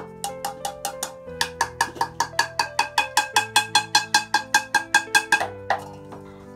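Background music: quick, evenly repeated plucked or bell-like notes over held bass tones. The notes speed up to about eight a second and stop a little after five seconds in.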